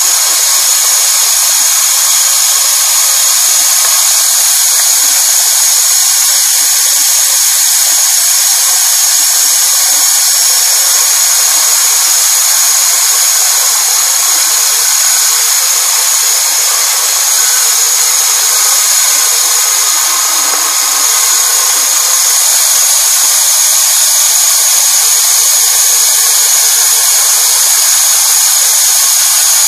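Homemade wheelless band saw running, a steady high-pitched motor-driven whine with a constant hiss and no low rumble.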